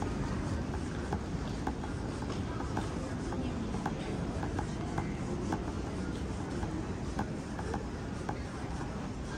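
Busy airport terminal ambience: a steady murmur of voices and hall hum, with footsteps clicking on a hard floor about once or twice a second.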